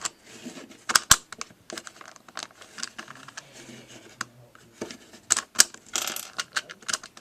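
Plastic pieces of a LanLan Rex Cube twisty puzzle clicking and clattering as its faces are turned and pieces are popped out of it: a run of irregular sharp clicks, the loudest about a second in and again about five seconds in.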